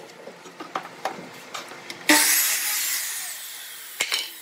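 Wooden boards knocking as they are shifted on the bench, then about two seconds in a Ryobi sliding miter saw starts loud and cuts through the wood, fading away over a second and a half with a falling whine as the blade winds down. A sharp click near the end.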